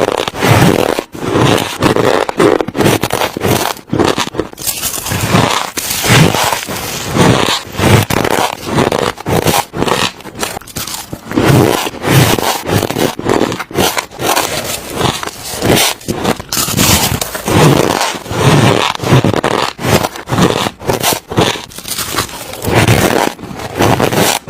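Soft, crunchy ice being bitten and chewed close to the microphone: a steady run of loud crunches, about two a second.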